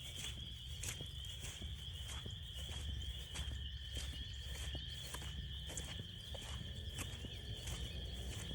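Frog chorus in full voice, a dense steady high trill, with footsteps on the trail at an even walking pace over it.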